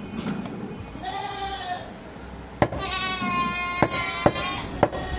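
A goat bleating twice, a short call about a second in and a longer drawn-out one from about two and a half seconds, over four sharp chops of a heavy knife striking meat on a wooden chopping block.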